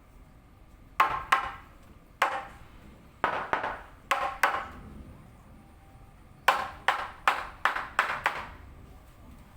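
Hammer blows in a woodworking shop: about fourteen sharp strikes in small groups, each with a brief ring, ending in a quicker run of six.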